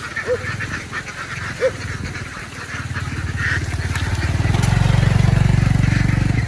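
A large flock of ducks quacking and chattering. An engine runs underneath with a low, fast pulse, grows louder through the second half to become the loudest sound, and stops abruptly at the end.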